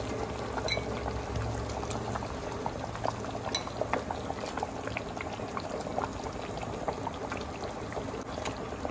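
Thin coconut-milk fish curry gravy boiling in a pan, a steady bubbling with many small irregular pops as bubbles burst on the surface.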